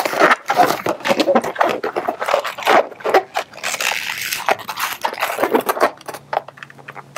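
Latex balloons being twisted by hand: a dense, irregular run of rubbery squeaks and crinkles as a small bubble is twisted into an inflated white round balloon.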